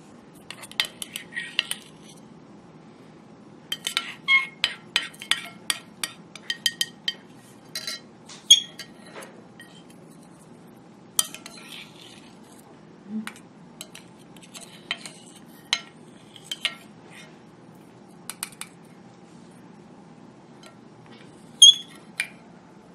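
Plastic spoons tapping and scraping on a ceramic plate and a small metal eyeshadow pan while crushed eyeshadow powder is scooped in. The clicks are irregular and come in quick clusters with short pauses between.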